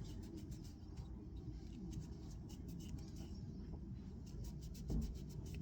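Microfiber cloth damp with brake cleaner rubbed quickly back and forth over a plastic Jaguar XF interior button, a fast run of short scratchy strokes as the last of the sticky soft-touch coating is wiped off. A dull bump comes near the end.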